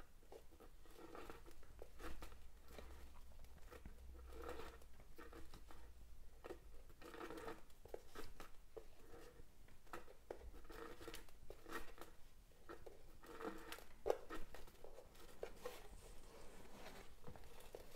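Faint rustling and light ticking of thin waxed polyester cords being handled, threaded around a guide cord and pulled tight into knots.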